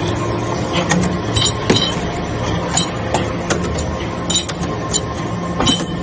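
Hydraulic metal-chip briquetting press running with a steady hum, with about ten sharp metallic clinks at irregular intervals.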